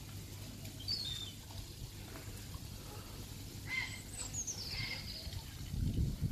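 Small songbirds in the trees: a short falling chirp about a second in, then a quick run of high notes dropping in pitch about four seconds in, over a steady low outdoor rumble that grows louder near the end.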